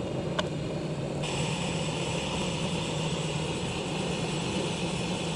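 Jetboil canister gas stove burning at full flame under a pan: a steady, strong rushing hiss over a low hum. There is a single click about half a second in, and a higher hiss joins about a second in and holds.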